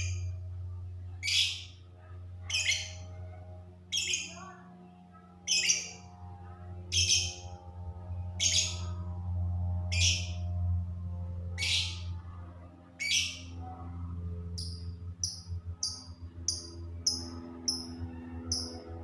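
Lovebird calling: loud, shrill, harsh calls repeated about every second and a half, then from about two-thirds of the way through, shorter, higher chirps coming quicker, about two a second. A steady low hum runs underneath.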